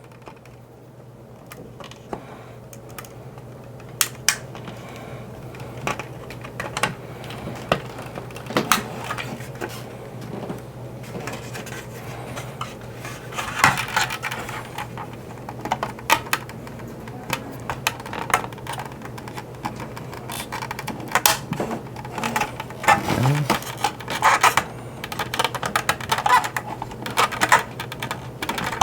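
Hard old plastic parts of a 1983 G.I. Joe Skystriker toy jet clicking and clattering as they are handled and pried apart, with irregular sharp clicks that come more often in the second half, over a faint steady low hum.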